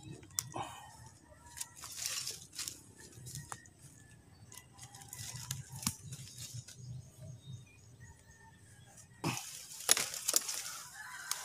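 Scattered light knocks and rustling from handling saplings and leafy brush. Near the end come a few sharper cracks as a bolo machete cuts into a branch.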